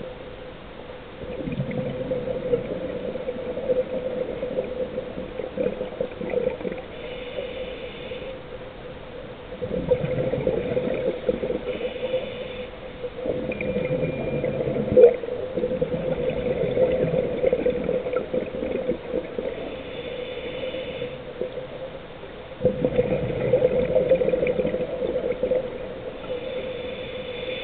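Scuba diver breathing through a regulator underwater: a short hiss on each inhale and a long bubbling gurgle of exhaled air every several seconds, over a steady hum.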